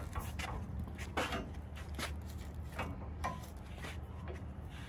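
Hands working at a plastic zip-tie strap and the plastic-wrapped ring on a metal frame: a series of short scraping rasps and clicks, roughly one every second, over a steady low hum.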